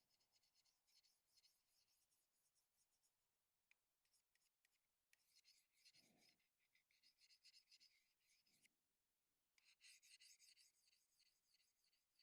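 Near silence, with faint scratchy rubbing in three stretches of a few seconds each and a few faint ticks.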